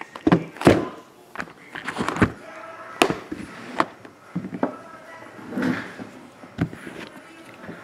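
Shrink-wrapped cardboard hobby boxes being picked up, stacked and set down on a padded table: a run of irregular knocks and taps, with rustling of the plastic wrap and handling between them.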